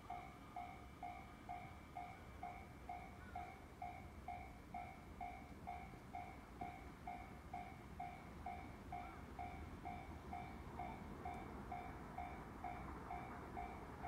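Railway level-crossing warning bell ringing steadily, about two strikes a second, signalling that a train is approaching.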